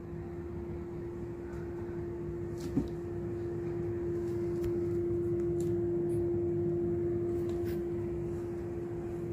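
Steady machine hum holding one constant mid-low tone over a low rumble, swelling slightly in the middle, like a fan or appliance motor running; a light click about three seconds in.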